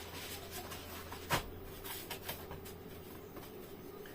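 Light rustling and small clicks of items being handled during an unboxing, with one sharper click about a second and a half in.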